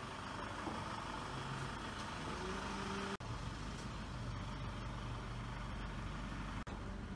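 Street ambience: steady road-traffic noise with a faint hum of vehicle engines, broken twice by a brief dropout where the video is cut.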